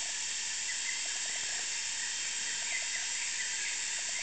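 Rainforest insect chorus: a steady, dense high-pitched drone from many insects, with short runs of rapid lower pulsing every second or so and a few faint chirps over it.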